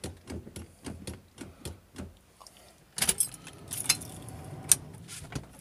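Key ring jangling from the ignition of a 1974 Pontiac Firebird, with a run of short knocks in the first two seconds as the accelerator pedal is pumped before a cold start. From about three seconds in comes a louder, denser jangle as the key is worked in the ignition.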